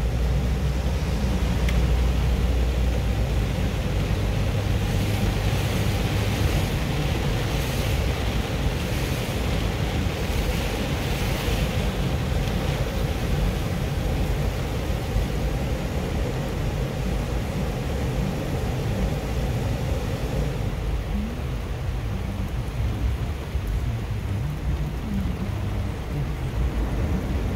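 Inside a car driving in rain: steady engine rumble and hiss of tyres on the wet road, with rain on the car. The hiss eases off about two-thirds of the way through.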